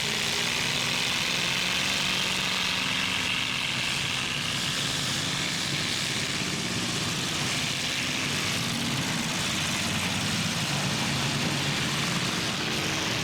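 Engines of several demolition-derby trucks and SUVs running together in a steady, unbroken drone, their pitch wavering slightly as they rev and ease off.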